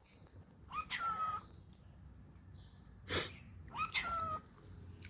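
Pet cockatiels calling: three short calls, the first about a second in and two more a little after three seconds. Two of them open harshly and settle into a brief held whistled note.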